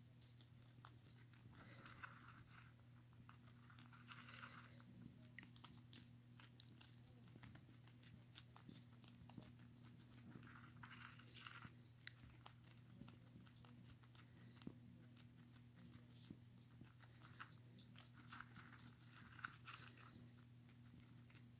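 Guinea pig chewing dry pellets from a bowl: faint, crisp crunches in short runs of bites, over a steady low hum.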